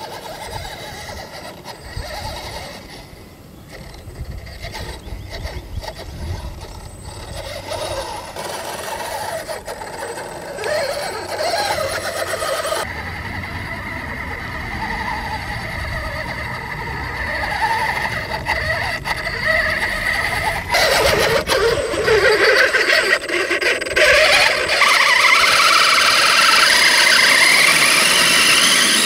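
Electric RC 6x6 truck's motor and geared drivetrain whining as it crawls over dirt. Near the end, the whine rises steadily in pitch as the motor speeds up on a climb.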